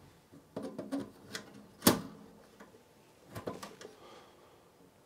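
Plug-in circuit cards of a Philips PM5534 pattern generator being handled and worked out of the unit's card frame: short groups of clicks and scrapes, with one sharp click about two seconds in.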